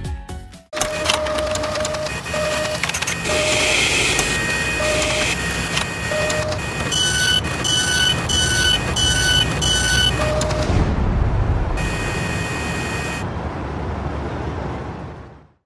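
Machine-like sound effects for an animated printing mechanism: a steady whir and rumble with scattered electronic beeps, then a run of quick higher beeps about two a second around the middle, fading out just before the end.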